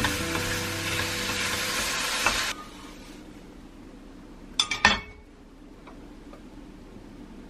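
Fish cakes sizzling in sauce in a color-coated frying pan as a spatula stirs them; the sizzle cuts off suddenly about two and a half seconds in. About two seconds later comes a quick cluster of clinks and knocks as the emptied pan is handled on the stove.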